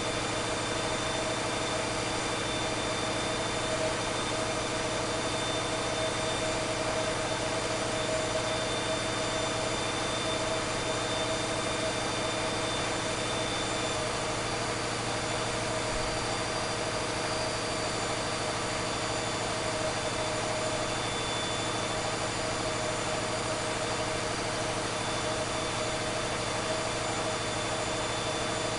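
Caterpillar 3516B V16 diesel engine running steadily on a dynamometer: a constant drone with a thin high whine above it.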